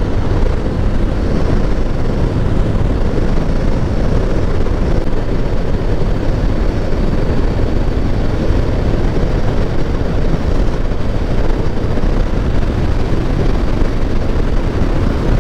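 Steady wind rush and road noise of a motorcycle ride, heard through a helmet-mounted action camera's microphone.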